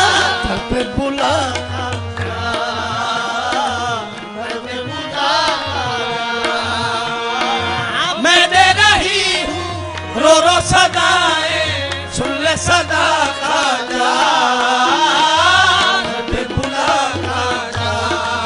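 Qawwali music performed live: harmonium and tabla under a wavering, melismatic sung melody line.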